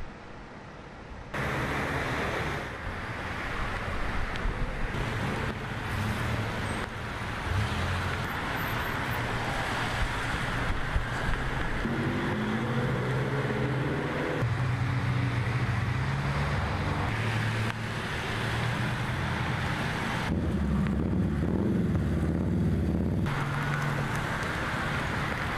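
Road traffic: vehicle engines running with tyre and road noise, the mix changing abruptly several times as the shots change. It is quieter for the first second or so, then louder.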